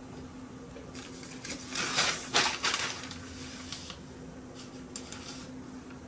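Handling noise at a desk: a short stretch of rustling and clattering, loudest about two seconds in, then a few lighter clicks, over a steady low hum.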